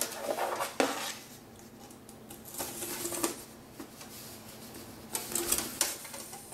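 Coat-hanger wire being handled and threaded through a hole in a sheet of cardboard: clicks, taps and scrapes of the wire against the cardboard and tabletop. These come in three short bouts, at the start, about halfway and near the end.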